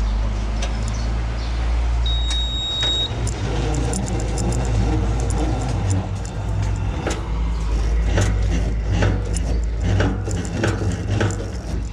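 A forklift's engine running steadily, with a brief high beep about two seconds in and repeated metal clinks and knocks over the second half.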